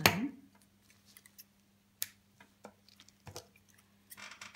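Handling of silk ribbon and burlap in an embroidery hoop: a sharp rustle as the ribbon is pulled through the fabric at the start, then a few small clicks and a soft rustle near the end.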